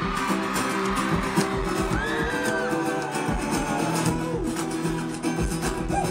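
Live concert music played through the PA: a looped acoustic guitar strum with a steady percussive beat.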